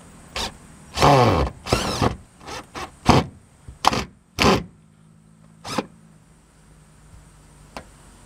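Cordless drill driving screws into steel roofing panels in several short runs, the motor's whine dropping in pitch as a screw bites, loudest in the first two seconds.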